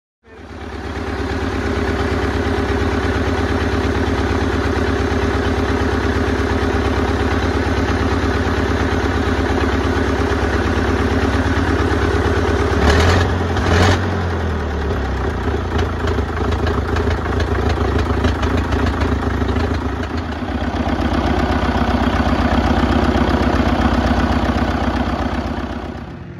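The 220 cubic inch four-cylinder diesel engine of a 1960 Fordson Super Major tractor running steadily. There are two short louder bursts about halfway through, and the sound dips and then swells again a few seconds before the end.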